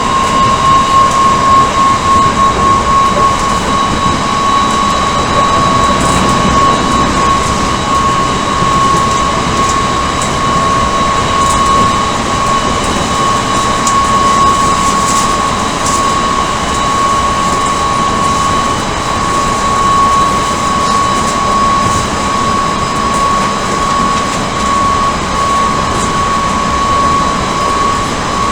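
Odakyu 1000 series electric train running, heard from inside the car: a steady high whine from the traction drive that creeps slightly higher in pitch, over the rumble of wheels on rail, with a few faint clicks.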